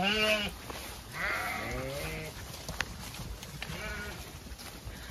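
Zwartbles ewes bleating three times: a short bleat at the start, a longer one about a second in, and a short one near the end, over a low rustle of the flock moving through grass.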